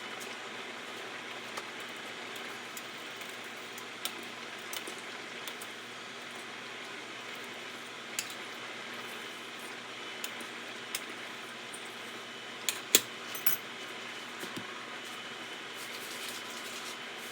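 Light clicks and clinks of kitchen handling, scattered through and loudest in a quick cluster about two-thirds of the way in, over a steady even hiss.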